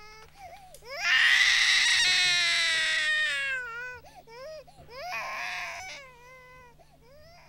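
Infant crying in wails: one long loud wail starting about a second in, a second shorter one about five seconds in, and smaller whimpering cries between and after.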